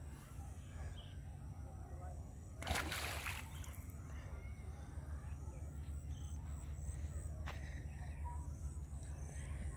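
A single splash in the river water close to the bank, about three seconds in, over a steady low rumble.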